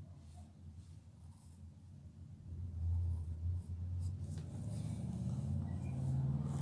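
Pencil scratching on paper in short sketching strokes, over a low hum that grows louder about two and a half seconds in.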